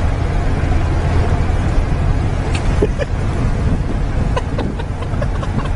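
Wind rushing and road rumble inside a moving car with a window open, a heavy low buffeting on the microphone.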